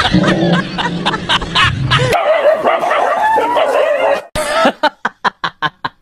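A dog yelping and whining after a prank scare, over a low rumble for the first two seconds; a long wavering cry follows. Near the end, music with quick plucked notes begins.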